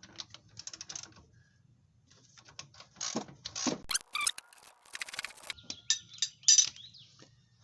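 A socket ratchet clicking in short, irregular runs as it turns the nut off the upper shock absorber mount, with sharp metal clinks of the socket and tools.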